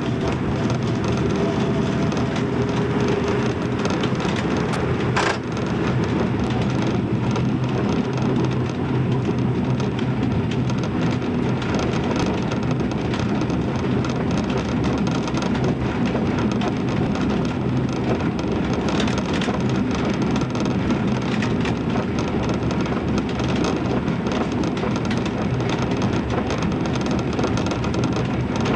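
Diesel railbus running at speed, heard from the driver's cab: a steady engine drone mixed with rumbling wheel-on-rail noise, with one sharp knock about five seconds in.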